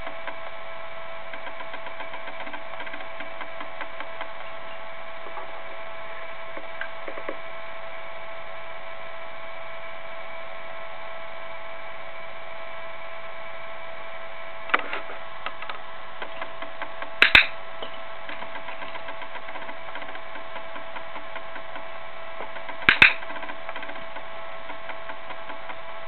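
A steady electrical whine made of several fixed tones runs throughout. Over it come a few sharp clicks, a single one about halfway through and then two loud double clicks some seconds apart, which fit a cockatiel's beak knocking a small plastic toy ball against its net basket.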